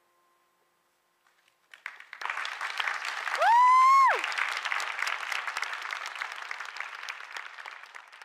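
An audience breaks into applause about two seconds in, after a moment of near silence. About a second later one person's loud cheer rises in pitch, holds briefly, then drops away over the clapping.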